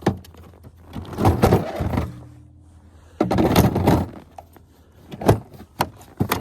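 Handling clatter: two longer spells of rattling and knocking, then a few sharp clicks near the end.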